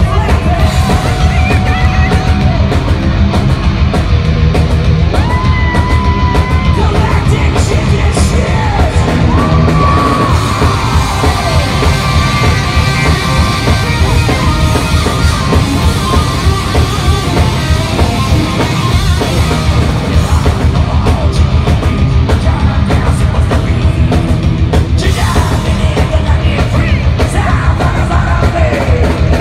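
A horror-punk band playing loud live, with guitars, bass and drums, and a singer's yelled vocals holding long notes over them.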